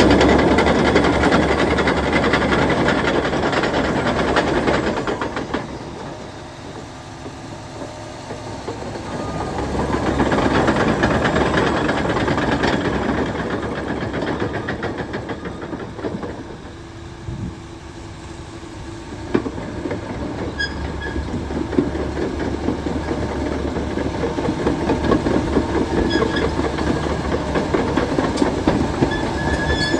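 Liebherr PR756 crawler dozer with its diesel engine running and its steel tracks clanking as it moves. The sound drops away twice and builds again, with a few short squeaks from the tracks near the end.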